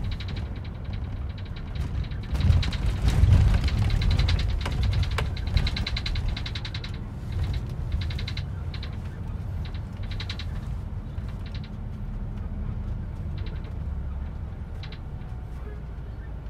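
Low, steady rumble of a moving double-decker bus heard from inside the upper deck, with bursts of rapid high-pitched clicking or rattling, busiest in the first half.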